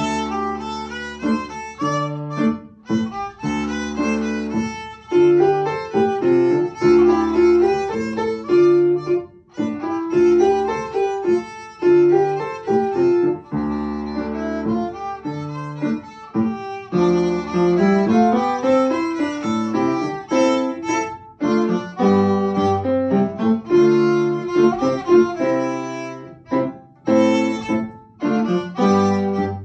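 A child's small violin playing a tune with piano accompaniment. The music starts abruptly and runs in phrases with a few brief breaks between them, over a repeating low piano bass.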